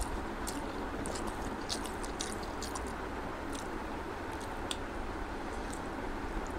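Close-miked chewing of a mouthful of rice and egg curry, with many short wet mouth clicks scattered through, over a steady background hiss.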